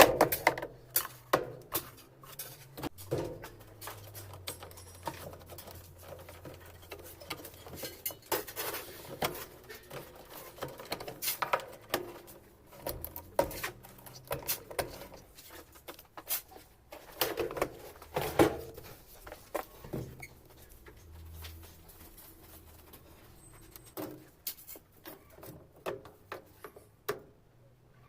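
Irregular clicks, taps and knocks of tools and plastic and metal parts being handled while a top-loading washing machine is taken apart.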